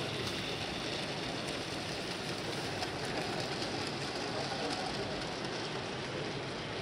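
Steady background hubbub of a busy exhibition hall: a dense, even wash of crowd murmur and hall noise with no single voice standing out.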